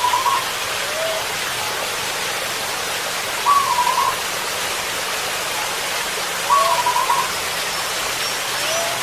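Zebra dove (perkutut) cooing: three short, wavering phrases about three seconds apart, each with a fainter lower note, over a steady background hiss.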